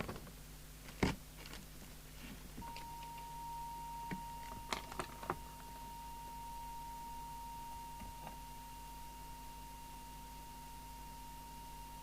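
A steady single-pitched test tone comes on about two and a half seconds in and holds, the audio used while the FM transmitter's deviation is being trimmed down. A few sharp clicks, bench handling of the set, come in between, over a faint steady hum.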